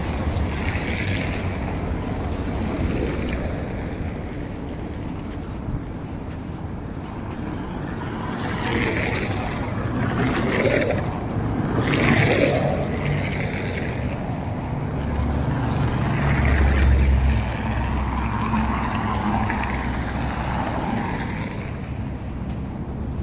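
City street traffic: vehicles passing with a steady rumble, swelling twice as nearer vehicles go by, the second with a heavier low rumble.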